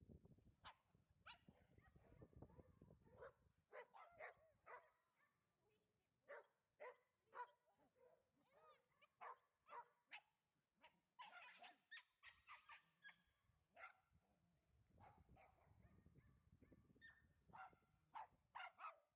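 A group of dogs barking and yipping in short, sharp calls, one after another at an irregular pace, some higher and thinner than others.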